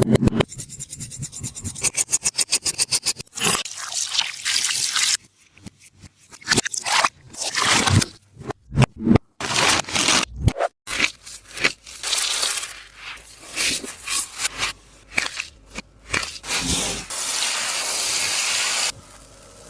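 Crinkly scraping and crunching of a tape-wrapped taba squishy being handled and squeezed. It opens with a quick run of regular taps, about eight a second, and ends with a couple of seconds of steadier rasping.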